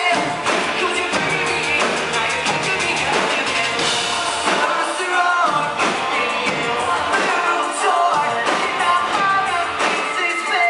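Live pop-rock band playing: a lead singer singing into a microphone over electric guitar and drums.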